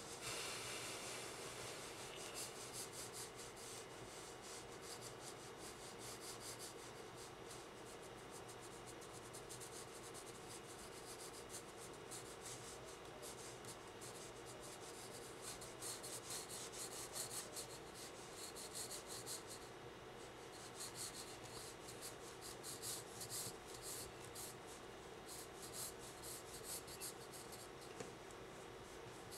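Faint pencil scratching across sketchbook paper in quick, dense shading strokes.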